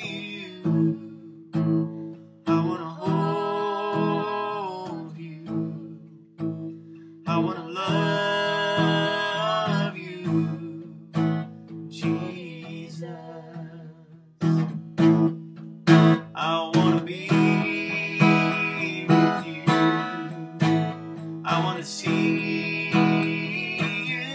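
Acoustic guitar strumming a slow song accompaniment, with long held sung notes over it four times.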